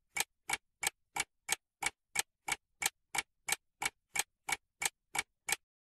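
Ticking-clock sound effect: evenly spaced sharp ticks, about three a second, that stop shortly before the end.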